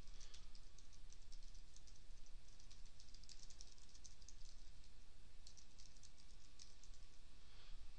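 Typing on a computer keyboard: a fast run of light keystrokes as a sentence is typed out.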